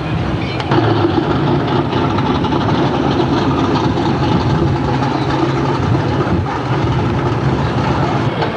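Classic American car engine idling as the car creeps along, a steady low engine note.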